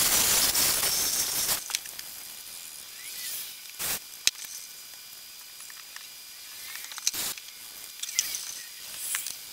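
Hose spraying liquid onto vinyl boat seating, a loud hiss that stops about a second and a half in. After that, a few brief clicks and knocks over a quiet background.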